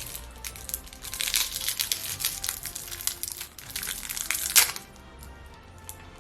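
A candy wrapper crinkling as it is handled and opened, in many quick crackles with a loud one about four and a half seconds in, after which the crinkling stops. Quiet background music runs underneath.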